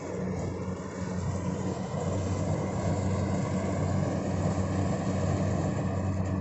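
Kubota tracked combine harvester running steadily while harvesting rice, a constant low diesel engine drone mixed with the hum of its machinery, growing louder about two seconds in.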